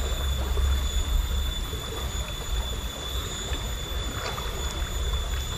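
A shallow, rocky river flowing over a riffle, a steady rushing of water.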